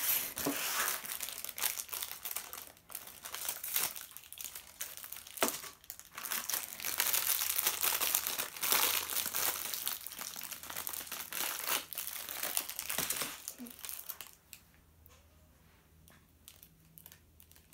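Shiny plastic wrapping being crinkled and torn open by hand: a busy, crackly rustling with sharp crackles, easing to faint, occasional rustles near the end.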